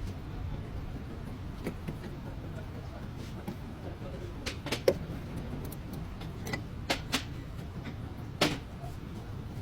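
A car's steady low rumble with a few scattered sharp clicks and knocks, the loudest about five seconds in and again near the end.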